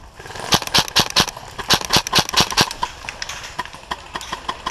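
Airsoft rifles firing a rapid, uneven string of shots, about four or five a second, loudest in the first few seconds and then lighter and fainter.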